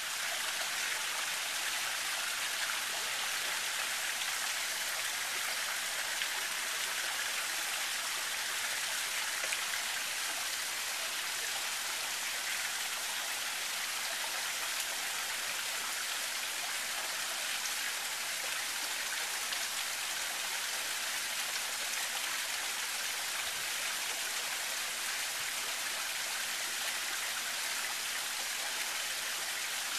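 Steady, unbroken hiss of water spraying and falling, like rain, in a bird enclosure's pool.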